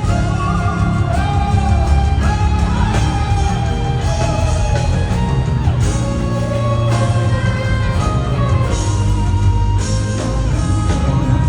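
Live worship music: a singer over an amplified band with a strong bass, echoing in a large hall.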